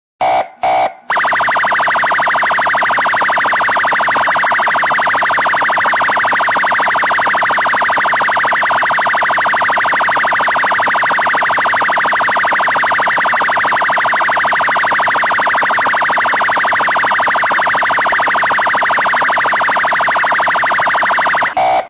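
ROTA police car's electronic siren: two short chirps, then a loud, continuous, fast-warbling siren tone that cuts off abruptly near the end.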